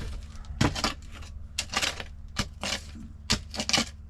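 Short shovel scraping and chopping into gravelly soil, about a dozen quick strokes, over a steady low hum.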